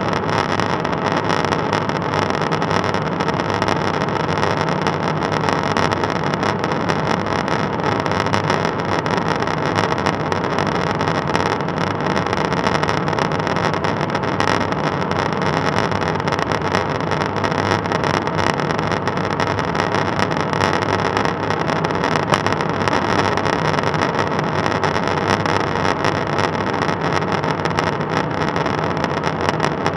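Steady in-flight noise inside a KC-135 Stratotanker's boom operator pod: an even rush of airflow and engine noise with a faint steady hum underneath.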